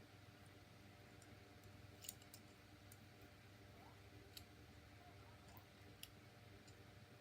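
Faint clicks of a plastic Transformers action figure's joints and parts being moved and snapped into place by hand, a few scattered clicks over a low steady room hum.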